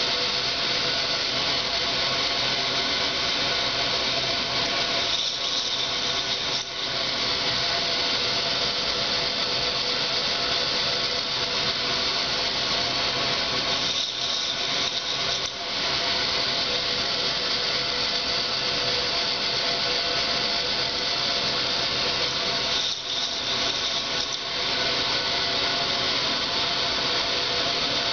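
K'nex roller coaster's motorized lift, its small motor driving the plastic chain and gears, running steadily with a whirring, grinding mechanical noise that dips briefly about every nine seconds.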